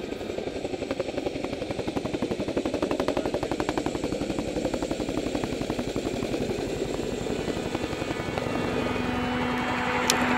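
CH-47 Chinook tandem-rotor helicopter flying low, its rotor blades beating in a fast, even chop. A held musical note comes in near the end.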